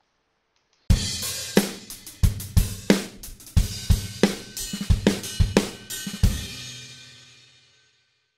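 A short drum-kit music sting closing the video: kick, snare and cymbal hits start about a second in and come in a quick, uneven pattern. It ends on a cymbal crash that rings and fades away.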